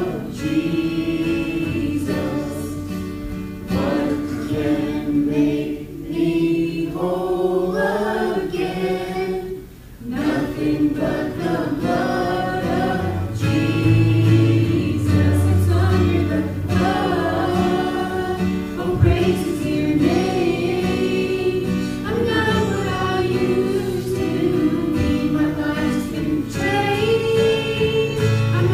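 A gospel worship song sung by a woman and a young boy into microphones, accompanied by strummed acoustic guitar.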